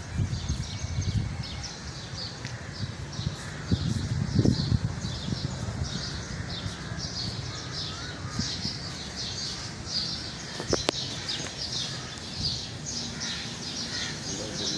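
Many small birds chirping steadily in quick, high, overlapping calls, over a low rumble that swells about four seconds in, with a single sharp click near the end.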